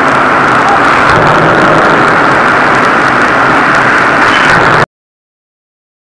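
Loud, steady din of heavy forge-shop machinery, an even noise with faint ticking and no distinct hammer blows, cutting off abruptly to silence about five seconds in.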